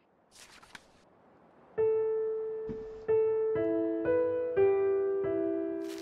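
Piano playing a slow, quiet run of single notes that ring out and fade, starting about two seconds in, with two notes sounding together from about halfway through. Faint rustles come before the first note.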